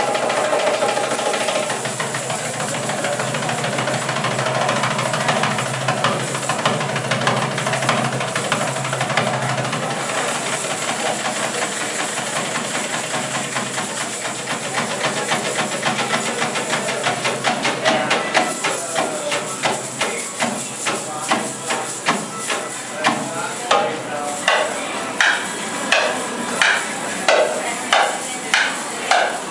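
Darbuka (goblet drum) played live: dense, fast rolls at first, settling in the last third into a steady beat of sharp strokes.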